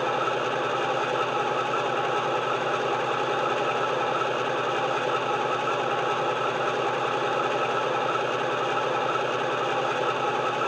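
Digital sound decoder in a Dapol model Class 52 Western diesel-hydraulic locomotive, playing a recorded diesel engine idle through an EM1 speaker. The engine idles steadily at an even level, with no revving.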